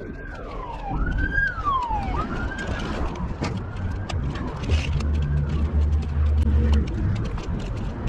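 A siren wailing in repeated sweeps, each rising quickly and falling more slowly over about a second, four or so times before it fades out around halfway. Underneath is a steady low rumble with many small clicks, and the rumble grows stronger in the second half.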